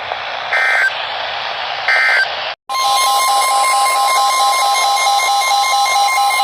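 Emergency Alert System tones: two short buzzy digital data bursts (end-of-message code), then, about two and a half seconds in, a loud steady alert tone with a pulsing beep under it that marks the start of the next warning.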